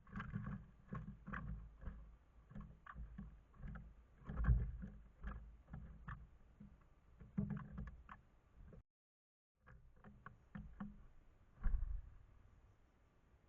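Irregular taps and knocks on a bird feeder with occasional heavier thumps, loudest about four and a half seconds in and again near twelve seconds, picked up by the feeder camera's own microphone.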